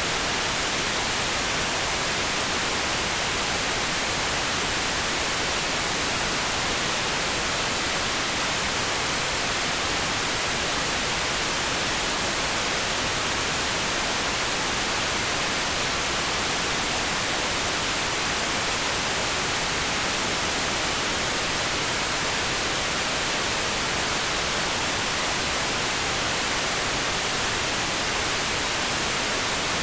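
Steady pink noise: an even, unchanging hiss with no breaks or variation.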